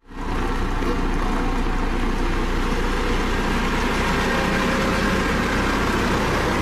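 Dynapac CC522 tandem asphalt roller's diesel engine running steadily as the roller moves over fresh asphalt, an even, unbroken engine hum that comes in suddenly at the start.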